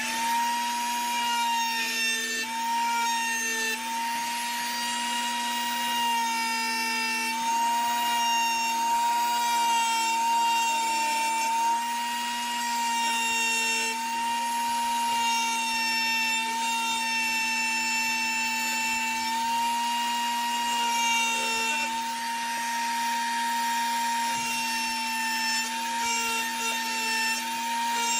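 Flex-shaft rotary tool running at a steady high whine, its small cone-shaped diamond bit grinding into wood. The grinding comes and goes as the bit is pressed to the wood and lifted off.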